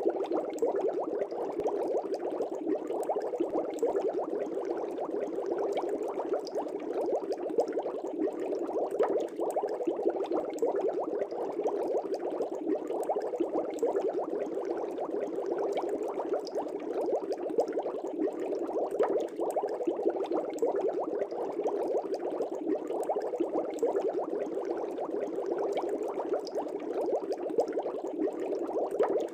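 Aquarium air bubbles rising and bursting in the water: a steady, dense bubbling with no breaks.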